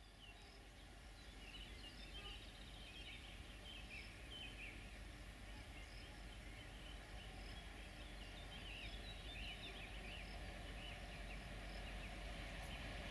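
Faint birdsong, many short chirps and twitters, over a low train rumble that grows steadily louder as an HŽ 1142-series electric locomotive hauling passenger coaches approaches.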